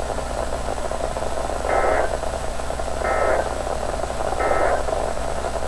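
Emergency Alert System end-of-message signal: three short bursts of SAME data tones, just over a second apart, over steady radio static.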